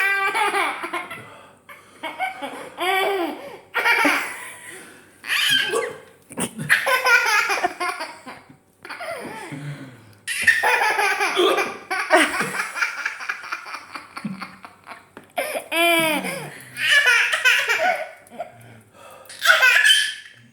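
A baby laughing hard in a long string of high-pitched bouts, each a second or two long, with short breaks for breath between them.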